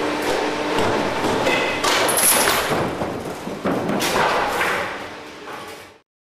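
Crash-test car striking a bicycle and rider dummy: a steady hum at first, then a run of thuds and clattering impacts with sharp knocks about two and four seconds in. The sound cuts off suddenly near the end.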